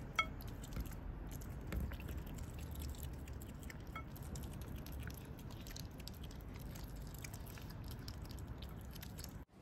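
Asian small-clawed otter chewing and biting raw fish, with a fast run of small wet clicks and smacks. Two short high chirps stand out, one near the start and one about four seconds in.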